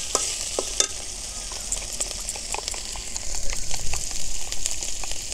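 Spice paste of ground onion, garlic, ginger and green chilli sizzling in oil in a metal karahi, with a steady hiss. A metal spatula scrapes and clicks against the pan as the masala is stirred and fried.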